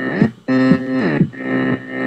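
Electronic pop music: short repeated synthesizer phrases with sliding pitches, broken by brief gaps.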